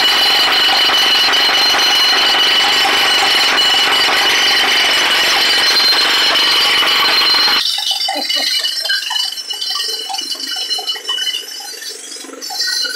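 Pneumatic jackhammer running continuously, breaking up sidewalk concrete, then cutting off suddenly about eight seconds in. After it come scattered faint short clinks and tones.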